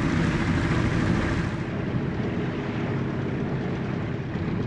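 Small boat's outboard motor running steadily underway: a constant engine hum under a broad hiss.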